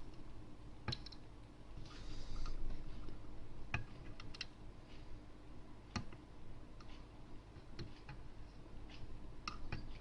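Light, irregular clicks and taps of hand soldering work on a circuit board, the soldering iron's tip and small tools touching the pins and board, with a brief faint hiss about two seconds in.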